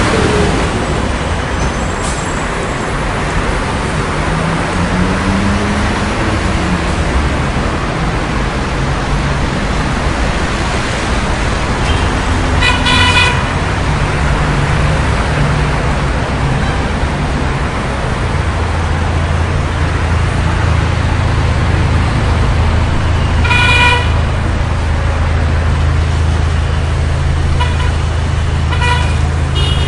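Busy city street traffic: a steady roar of passing cars and engines, with the low hum of a vehicle idling in the second half. A car horn toots briefly twice in the middle, then several short horn toots come near the end.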